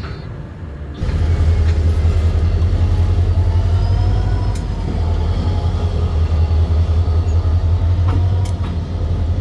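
Diesel locomotive engine rumbling steadily as the train pulls out, coming in suddenly about a second in.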